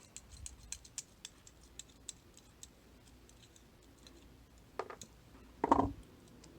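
Small rapid clicks and ticks from a high-security cam lock and hand tools being handled during disassembly, followed by two louder knocks nearer the end.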